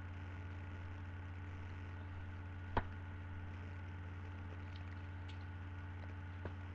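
Steady low hum, with one sharp click nearly three seconds in and a fainter click near the end.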